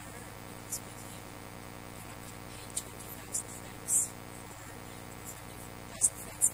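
Steady electrical hum from the sound system, with a few short, faint hisses scattered through: the 's' sounds of a talk that is otherwise too faint to make out.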